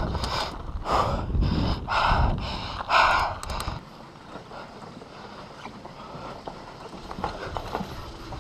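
Mountain bike riding fast down a dirt trail: wind on the microphone and tyres rumbling over the ground, with a rush about once a second. It cuts off abruptly about four seconds in to a much quieter background with scattered light clicks and knocks as the bike is handled.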